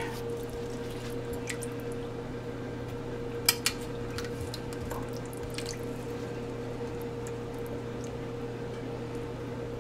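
A metal spoon stirring water in a stockpot, the water swishing softly, with a few light clinks of the spoon against the pot; the sharpest pair comes about three and a half seconds in. A steady low hum runs underneath.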